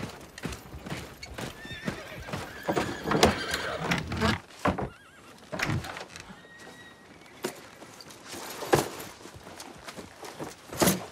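Horses on the move, hooves clopping, with a horse neighing about three seconds in. A few louder knocks come later.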